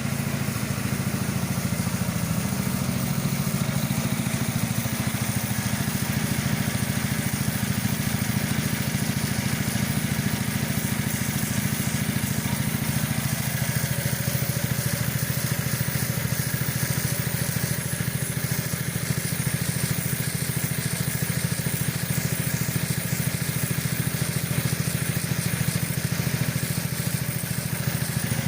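Pressure washer running steadily while spraying water to clear moss: a fast, even pulsing from the pump under a constant hiss.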